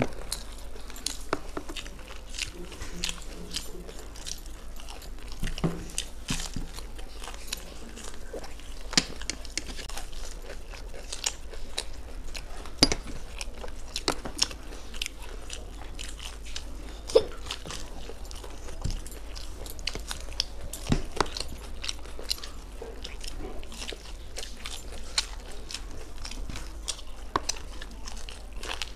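Two people biting into and chewing fried egg cutlets close to the microphone: irregular crunches and mouth sounds, with a few sharper crunches standing out.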